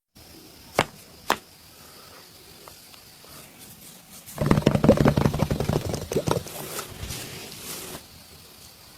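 Two sharp cracks about half a second apart, then about two seconds of fast hand strokes slapping on a massaged back, tailing off.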